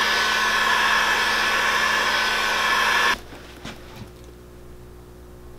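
Electric heat gun blowing steadily with a faint whine, reactivating dried glue on a boot's midsole before the sole is stuck on. It cuts off abruptly about three seconds in, followed by a couple of faint clicks.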